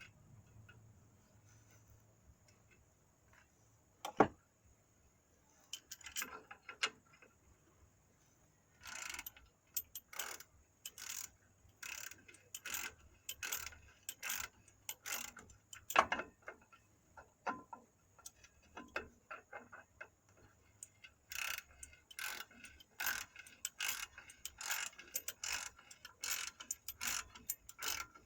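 Hand tools working on a drum brake assembly: runs of short metal clicks like a ratchet wrench being worked in strokes, with two sharper metal knocks, one early and one about halfway through.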